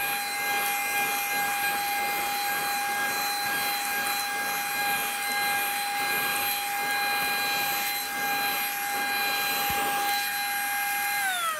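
Blaupunkt cordless handheld vacuum cleaner running on its faster suction setting while its nozzle is worked over carpet: a steady high motor whine over rushing air. Near the end the motor is switched off and the whine falls in pitch as it spins down.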